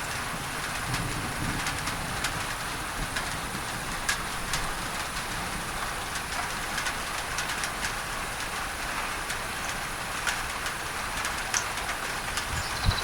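Steady rain on a tin roof, with scattered sharp drop ticks, layered with a constant hiss of masking noise. A bird chirps a few quick falling notes near the end.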